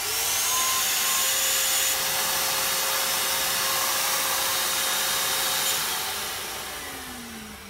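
Electric blower motor of an Airfog U-260 cold fog generator switched on: it spins up with a rising whine, then runs steadily, blowing and spraying fog. About six seconds in it is switched off and winds down, the whine falling in pitch. Small, low-powered motor, running and spraying again after repair.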